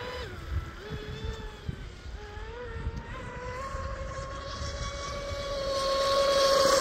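Brushless electric motor of an RC mono-hull speedboat whining at speed across the water. Its pitch dips and changes with the throttle for the first two seconds, then it holds a steady whine that grows louder toward the end.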